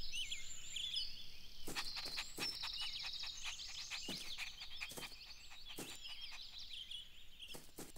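Outdoor birdsong ambience: many small birds chirping in short, quick high notes, with a dozen or so sharp soft clicks scattered through it.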